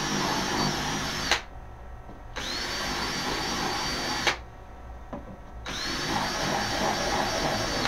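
Cordless drill boring holes into a plate, run in three bursts of about two seconds each. Each burst starts with a quick rising whine, holds a steady high whine and then cuts off.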